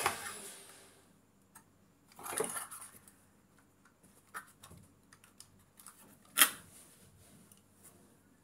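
Handling of a die-cast toy car in its cardboard box: scattered light clicks and taps, a rustling scrape about two seconds in, and a sharper click about six seconds in.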